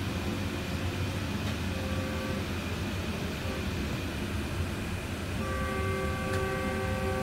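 Steady low rumble of a moving commuter train heard from inside a passenger car. A multi-note locomotive horn sounds a short blast about two seconds in and a longer blast from about five and a half seconds to the end.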